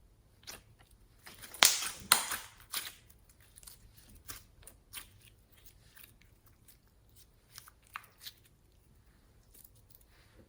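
Hands squishing and stretching slime: sticky crackling and popping clicks, the loudest cluster about a second and a half to two seconds in, then sparser pops.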